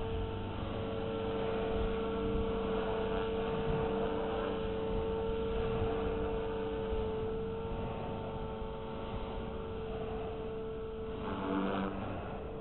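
Blade 360 CFX electric RC helicopter in flight, its motor and rotors giving a steady whine at constant headspeed in idle-up 3 flight mode, with a brief break near the end.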